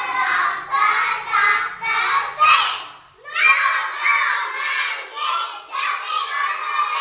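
Many five-year-old children's voices calling out together in chorus, with a short pause about three seconds in.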